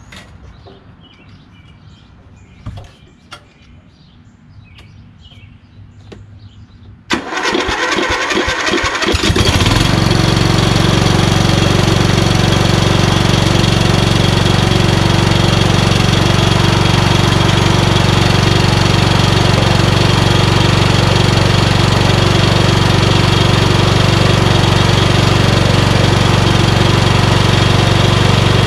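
A few seconds of faint clicks, then about seven seconds in the MTD Yardman lawn tractor's 15.5 hp Briggs & Stratton engine is cranked by its starter, fed straight from a jumper pack to bypass the failed solenoid, for about two seconds before it catches and runs steadily.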